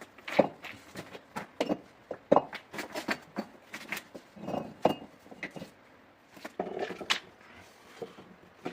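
A series of irregular knocks, clatters and scuffs, with no steady rhythm.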